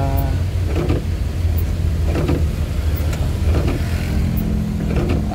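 Suzuki Carry 1.0 engine running steadily, heard from inside the cab while driving in heavy rain. Windscreen wipers knock across the glass about every second and a half.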